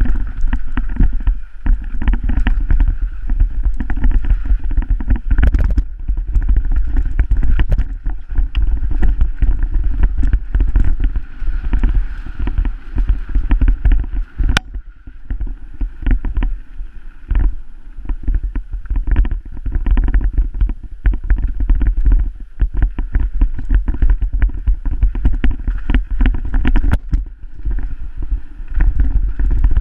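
Mountain bike riding fast down a rough dirt and rock trail, heard from a helmet-mounted camera: heavy wind rumble on the microphone with constant clattering and irregular knocks from the bike and tyres over bumps.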